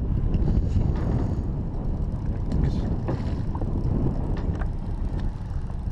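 Steady low rumble on a party boat: wind buffeting the GoPro microphone, with the boat's own drone underneath and a few faint distant voices.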